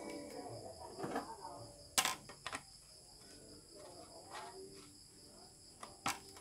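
Crickets chirring steadily and high-pitched in the background, with a few sharp knocks as the metal light stand is handled, the loudest about two seconds in and another near the end.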